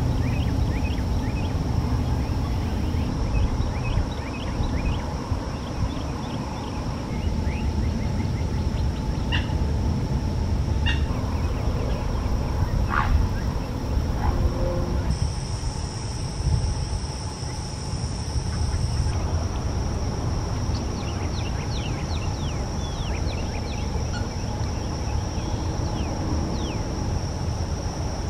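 Wetland ambience: many short bird chirps and calls over a steady high hum and a low rumble. The background changes abruptly about halfway through.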